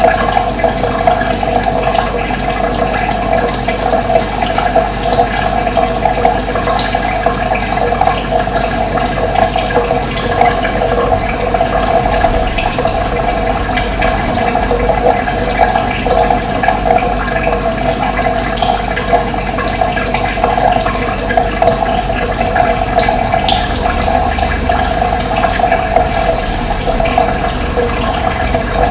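Steady rush of running water, with short, faint bird chirps here and there over it.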